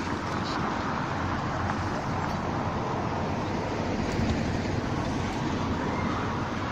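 Wind buffeting the microphone over a steady outdoor rumble, with no horn or other distinct event.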